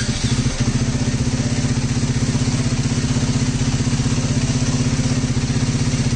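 KTM Duke 390's single-cylinder engine idling steadily with an even, rapid pulse. It is running with the radiator cap off after a coolant refill so that trapped air bubbles purge from the cooling system.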